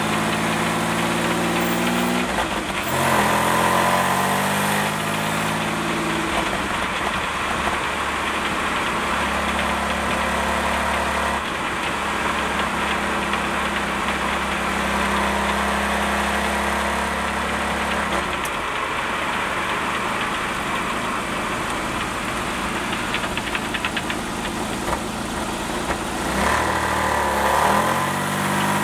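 GM Series II 3800 V6 in a 1988 Pontiac Fiero running and being revved: its pitch rises and falls a few seconds in, holds steady through the middle, then climbs again near the end. Through the Getrag 282 transaxle there is a rattle that the owner says is not in time with the engine.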